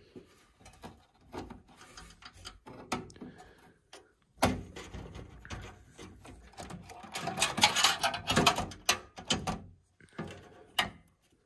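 Stanley screwdriver and a small motherboard screw clicking and scraping against metal as the screw is worked into a standoff in the case. There is a sharp knock a little under halfway, then a dense run of rapid clicking and rattling.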